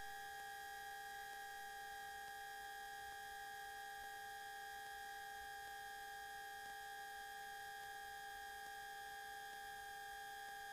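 Faint steady electrical hum and whine from the aircraft's intercom audio feed: several high, unchanging tones over a light hiss.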